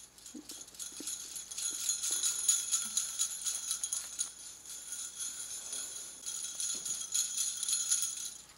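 A cluster of small metal jingle bells shaken by hand, jingling continuously and building over the first couple of seconds, then stopping shortly before the end.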